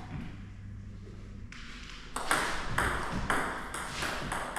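Table tennis rally: a ball clicking off bats and table about twice a second, starting about two seconds in.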